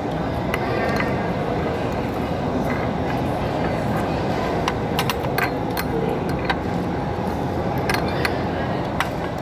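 Busy restaurant ambience: a steady babble of many voices. About halfway through, several sharp clicks and clinks come in, a few at a time, scattered through the rest.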